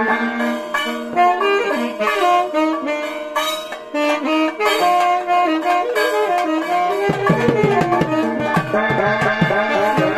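Music: a wind instrument playing a melody of long held notes over drumming, the drums filling out about seven seconds in.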